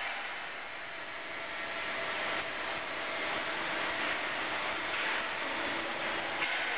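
A plate bending roll machine running, with a steady mechanical grinding noise from the rolls and their drive.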